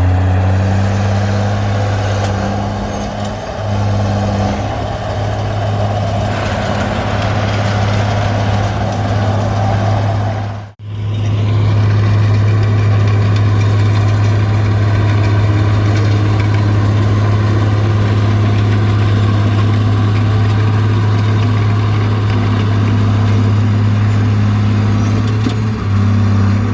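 Komatsu D20P bulldozer's diesel engine running steadily with a deep, constant hum, broken once by a brief dropout about ten seconds in.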